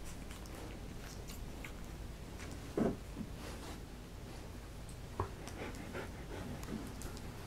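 Doodle mother dog panting while her three-week-old puppies nurse, with one short squeaky cry about three seconds in.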